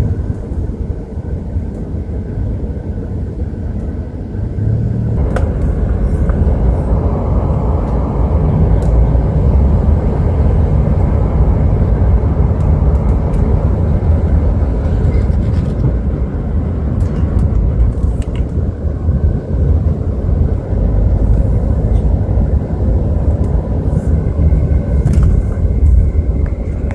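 Open-top convertible car driving: steady road and engine noise with low wind rumble, growing louder about five seconds in.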